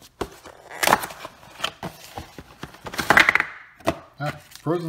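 A cardboard frozen-meal box being handled and opened and the plastic-wrapped bowl slid out: scattered clicks with rustling and crinkling of cardboard and plastic film, loudest about a second in and again about three seconds in.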